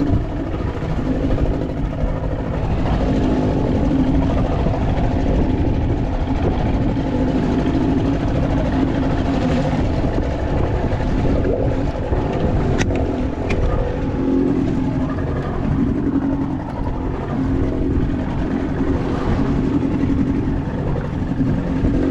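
Boat motor running steadily in reverse, holding the boat in place against a fast wind-and-current drift, with a continuous low hum over water and wind noise.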